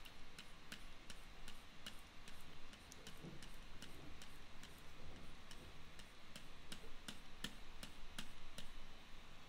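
Light, sharp clicks at an uneven pace, about two or three a second. They come from clicking the computer's pointing device to dab brush strokes onto a layer mask.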